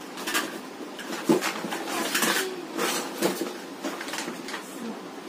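Plastic toys clattering and knocking as they are handled and moved about, in a string of separate knocks with the sharpest one about a second in.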